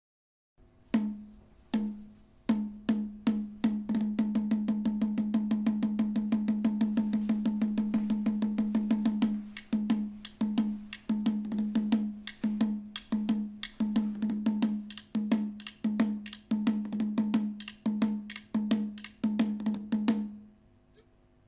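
Percussion music played back through small homemade speakers with 1.75-inch drivers and passive radiators: a pitched drum struck repeatedly, with a fast roll in the first half, then single strikes about two a second.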